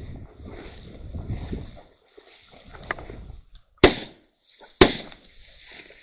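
Two shotgun shots about a second apart, fired at a flushed quail, with the first low rumbling noise of the field before them.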